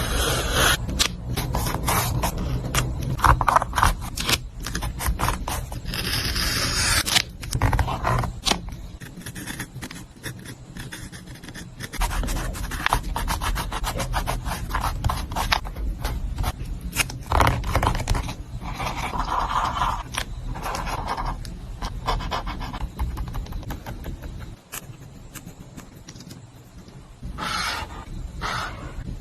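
Paper and stationery handled close up for a journal page: irregular scraping and rubbing, with many small clicks and taps.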